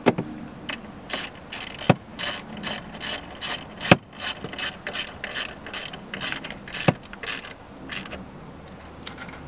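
Hand ratchet clicking in quick strokes, about three clicks a second, with a few sharper knocks among them. It is tightening the 10 mm nuts that hold a tow mirror to the door.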